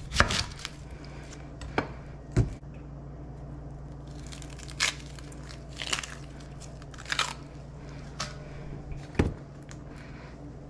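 Chef's knife cutting through a sweet onion and knocking on a bamboo cutting board, then the onion's dry outer skin being peeled off by hand in separate crisp crunches and crackles. The heaviest knock comes about two and a half seconds in; a low steady hum runs underneath.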